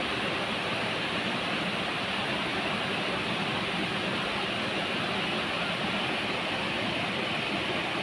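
A large waterfall rushing steadily as water pours down a tall rock face, an even, unbroken noise.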